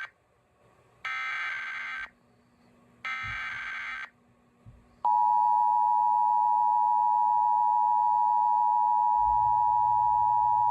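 Emergency Alert System SAME header data bursts, two buzzy one-second squawks about two seconds apart, completing the three-burst header. About five seconds in, the loud, steady two-tone EAS attention signal begins.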